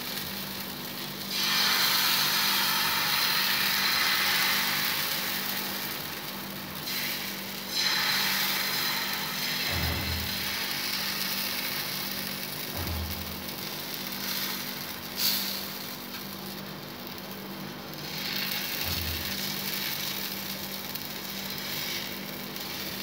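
Thin wheat-flour batter sizzling on a hot oiled tawa while a steel spoon spreads it round and round, scraping over the griddle in spells, with a steady low hum underneath and a few dull knocks.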